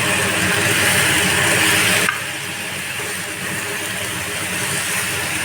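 Chicken and potato pieces frying in hot oil in a pan: a loud, dense crackling sizzle that eases a little about two seconds in.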